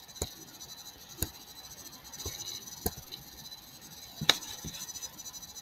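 Computer mouse clicking, a handful of single sharp clicks at uneven intervals, the loudest about four seconds in, over a faint steady background hum.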